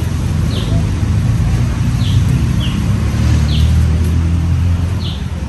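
A low, steady rumble that swells about three seconds in and eases near the end, with a small bird chirping over it: short, high, falling chirps about once a second.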